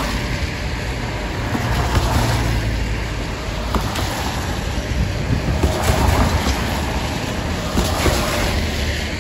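Cars passing close by on a rain-wet street: tyre hiss and engine rumble swelling and fading with each pass.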